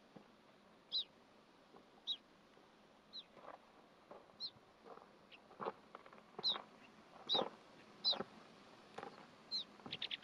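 Short, high chirping calls, each one dropping quickly in pitch, repeated about once a second. Footsteps join from about three seconds in.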